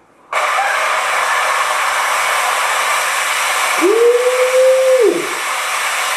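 A lit firecracker fuse hissing: a loud, steady hiss that starts suddenly. About four seconds in, a single tone rises, holds for about a second, then drops away.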